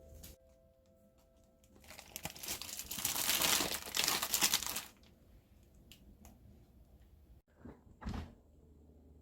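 Plastic bag crinkling and rustling loudly for about three seconds, then one brief rustle near the end.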